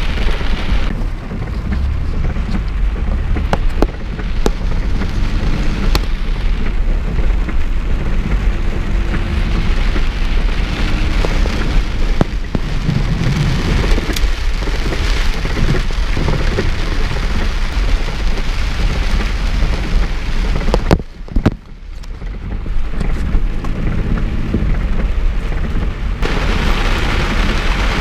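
Heavy rain pelting a car, a dense steady hiss with scattered sharp drop ticks over a low rumble. The sound briefly drops away for about a second a little past two-thirds of the way through, then returns.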